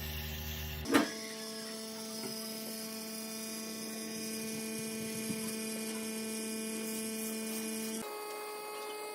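A steady electrical hum held at fixed pitches, with a sharp knock about a second in; the hum changes abruptly near the end.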